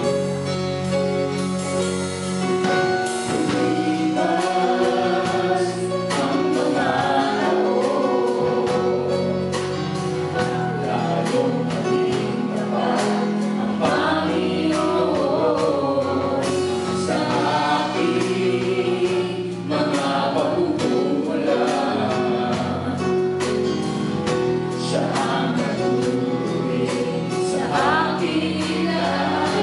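Live worship band playing a Tagalog gospel song: female and male voices singing the melody over electric guitar and a drum kit keeping a steady beat.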